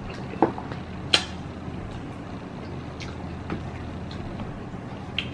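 Chopsticks clacking against plastic food trays and a noodle cup while eating: a few short, sharp clicks, the loudest about a second in, over a steady low hum.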